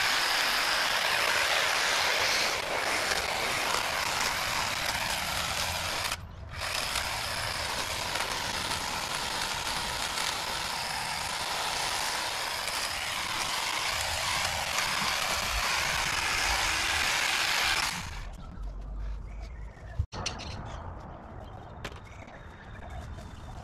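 Husqvarna battery-powered pole cutting tool running as it cuts tree branches overhead. It pauses briefly about six seconds in and stops a few seconds before the end. After that, a single sharp click stands out over quieter background.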